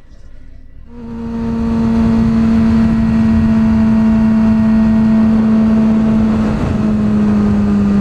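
Sport motorcycle engine running at a steady, high cruising speed, heard from the rider's seat with wind rushing over the microphone. It comes in about a second in, and its pitch drops slightly about six and a half seconds in.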